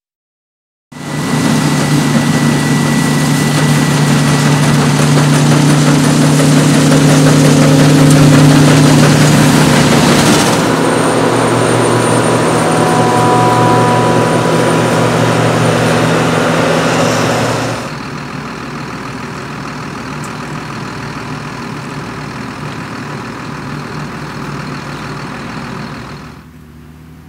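Combine harvesters and tractors pulling grain trailers running during the wheat harvest, a steady heavy-diesel engine hum. The sound changes abruptly about a third of the way in and again past halfway, and is quieter in the later part.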